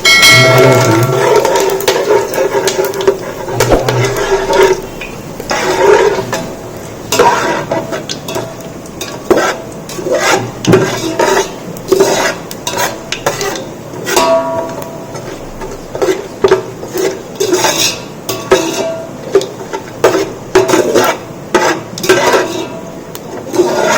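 A metal ladle stirring and scraping whole spices frying in hot oil in a cooking pot, with repeated scrapes and knocks against the pot.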